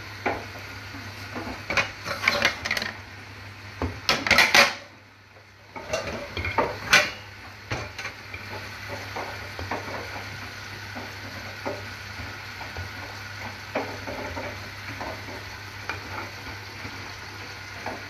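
Dishes, pots and pans knocking and clattering as they are handled and shifted in a dishwasher's racks, in busy clusters over the first eight seconds, then only a few scattered knocks. A steady low hum runs underneath.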